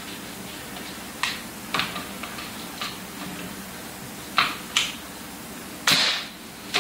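Kitchen handling noise: a scattering of sharp taps and clacks of utensils and apple pieces on a countertop or cutting board, the loudest clack about six seconds in.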